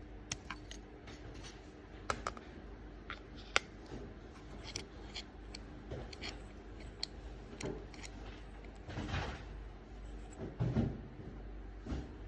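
Small hand drill being handled and worked: irregular light clicks and ticks, with two short scraping rasps in the second half.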